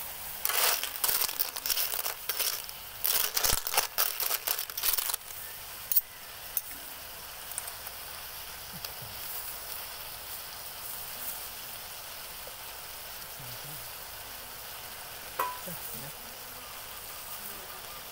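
Cockles in their shells rattling and clattering against a metal wok as they are stirred for about five seconds, then a steady sizzle as they fry in the tamarind sauce. One short knock about fifteen seconds in.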